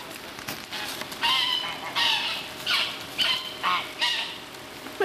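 White domestic goose honking repeatedly, about six loud calls spread a few seconds apart, while it is being chased and driven.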